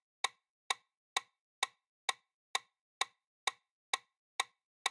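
Quiz countdown timer sound effect: short, sharp ticks evenly spaced about two a second, marking the seconds left to answer.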